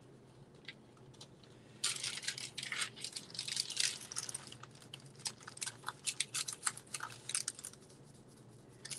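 Graphite pencil scratching over thin tracing paper in quick, irregular strokes, with the paper rustling under the hands. It starts about two seconds in and stops shortly before the end.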